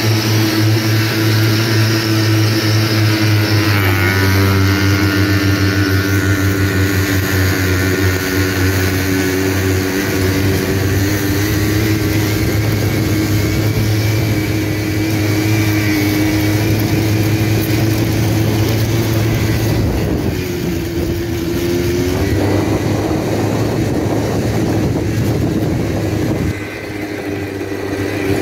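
A vehicle engine running steadily close by, with its pitch dipping briefly about four seconds in and again around twenty-one seconds before rising back.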